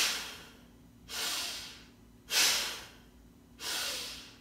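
A woman breathing forcefully in and out into the chest, a yogic chest-breathing exercise. Four strong breaths, about one every 1.2 seconds, a sharper, louder breath alternating with a softer one.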